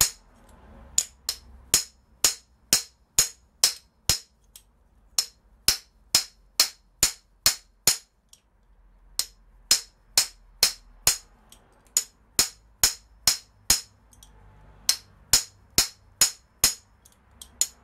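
Hammer tapping a steel former into the end of a copper pipe: a steady run of sharp metallic taps, about two to three a second, pausing briefly about halfway through and again later. Each blow drives the former in and expands the copper pipe end into a solder socket.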